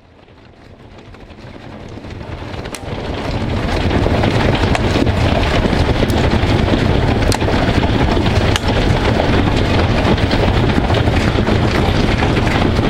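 Hail falling hard on grass and concrete steps: a dense, steady patter of hailstones with now and then a sharp crack of a single stone striking close by, and wind buffeting the microphone. It swells up over the first four seconds, then holds steady.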